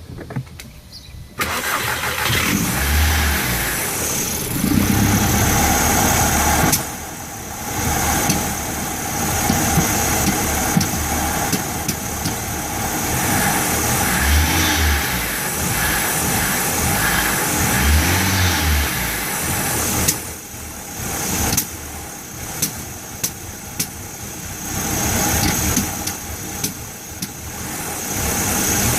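Volkswagen Jetta 1.8-litre turbocharged four-cylinder engine catching and starting about a second in, then idling unevenly, its level dropping and recovering twice, with several sharp pops in the second half: the rough idle and sputtering of a misrunning engine.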